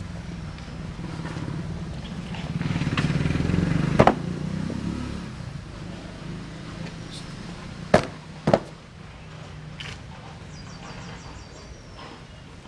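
Steady low outdoor hum, swelling about three seconds in, broken by three sharp knocks: one about four seconds in and two close together about eight seconds in. A faint high chirping comes near the end.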